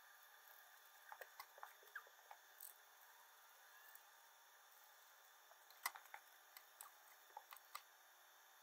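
Faint scattered clicks and taps of small objects being handled, in two loose clusters, the sharpest click a little past the middle, over a low steady hiss.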